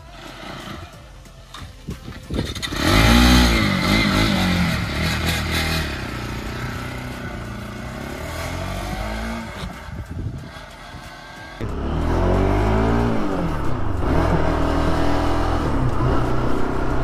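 Motorcycle engine accelerating away. Its pitch sweeps up and drops back through the gears, loud about three seconds in and again from about twelve seconds.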